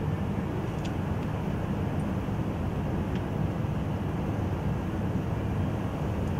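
Steady low rumble of background noise, with a couple of faint ticks.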